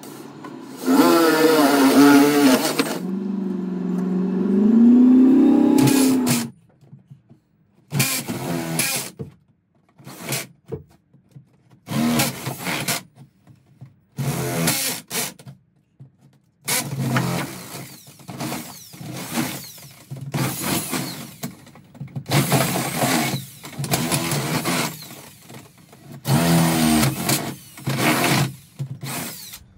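Power drill with a long extension bit boring up through wooden ceiling boards, run in repeated bursts as the trigger is squeezed and let go. In the longest burst, a few seconds in, the motor's pitch climbs.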